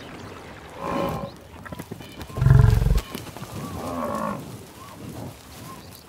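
Buffalo calling: a short low call about a second in, a loud deep bellow around two and a half seconds, and a longer lowing call near four seconds.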